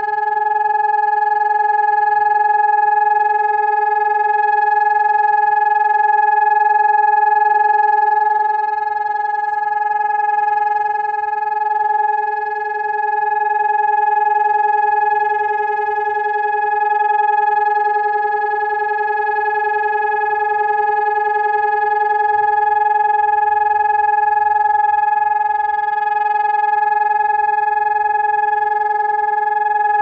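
SiRcom ESp 750 MAESTRO electronic siren sounding the steady test tone of a siren test: one unwavering mid-pitched tone with overtones, held without any rise or fall in pitch, its loudness swelling and dipping slightly.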